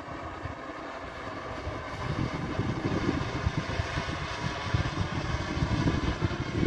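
Engine of a BD-5 model aircraft in flight, a steady drone with faint, slowly falling tones. A low, uneven rumble grows louder about two seconds in.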